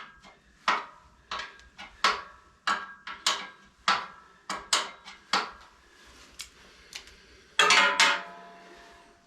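Metal tools clinking and clanking against metal in irregular, sharp knocks, about two a second, each ringing briefly. A louder clatter comes near the end and leaves a short ringing tone.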